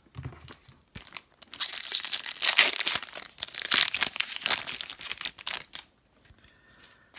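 The foil wrapper of a 2018-19 Upper Deck Series 1 hockey card pack being torn open and crinkled by hand: a dense crackle that starts about a second and a half in and lasts about four seconds, with softer rustling before and after.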